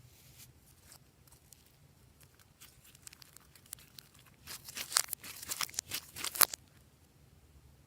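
Glossy slime being handled, with scattered faint clicks and then, about halfway through, two seconds of dense sticky crackling and tearing sounds as it is pressed and pulled apart.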